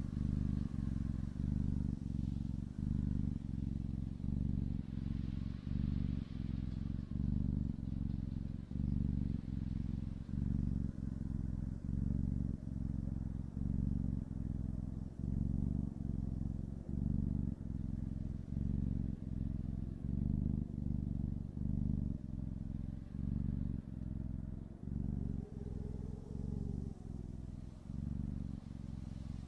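Kitten purring close to the microphone, a steady low rumble pulsing evenly, about one and a half pulses a second.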